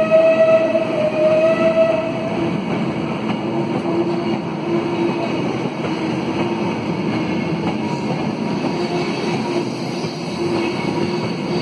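Passenger carriages of a steam-hauled heritage train rolling past and away, a steady rumble of wheels on the rails. A high ringing tone sounds over it and stops about two and a half seconds in.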